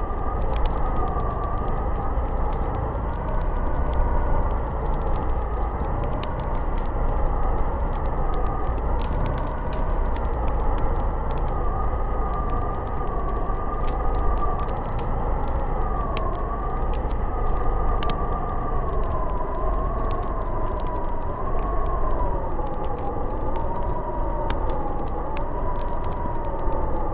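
Snowstorm wind howling: a steady rush with a low rumble and a whistling tone that wavers slowly up and down in pitch, with scattered faint ticks.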